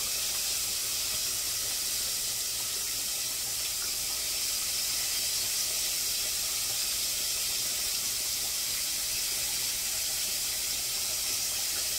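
Kitchen faucet running steadily into a stainless steel sink as chopped cabbage is rinsed in a bowl of water.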